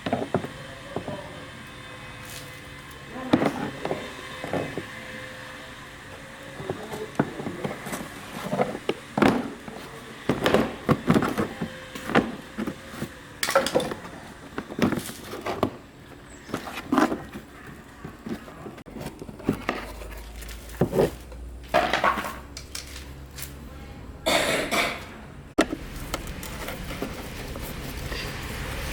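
Irregular clicks, taps and knocks of hand tools and small parts being handled while working on an old TV set. A low steady rumble comes in about two-thirds of the way through.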